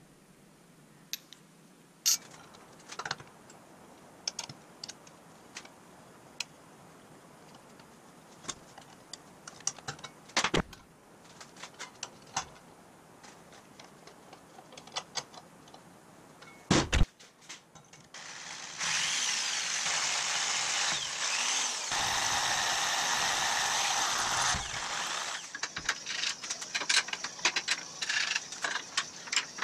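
Metal-shop handling noises: scattered clicks and knocks as brass bushings are handled and pressed into a spring eye with a C-clamp. Then about six seconds of steady, harsh scouring, briefly broken once, and quick scratchy strokes near the end as the steel leaf spring is scrubbed toward bare metal.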